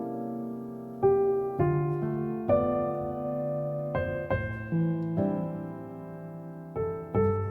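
Background music: slow solo piano playing sustained chords, each struck note ringing out and fading.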